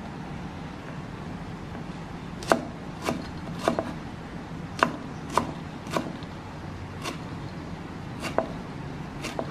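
Cleaver chopping lemongrass stalks on a thick wooden chopping block: about nine sharp knocks at uneven intervals, starting about two and a half seconds in.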